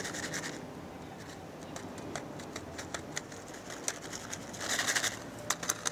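Plastic bag being handled, rustling and crinkling, with scattered small clicks; a louder burst of crinkling comes near the end.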